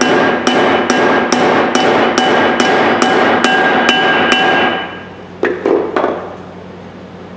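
Steel ball-peen hammer striking the top of a brass hammer's head and handle, driving the handle wedge in to set the head. The quick, even blows come about three a second, each with a metallic ring, and stop after about four and a half seconds, followed by a couple of lighter knocks.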